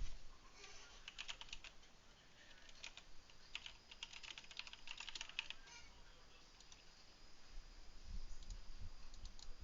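Faint typing on a computer keyboard: irregular quick key clicks for the first several seconds, then a few soft low thumps near the end.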